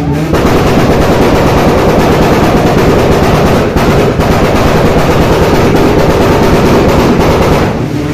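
A drift car's engine revving hard and very loud, with a rapid, rattling, gunfire-like exhaust note, easing briefly about three and a half seconds in.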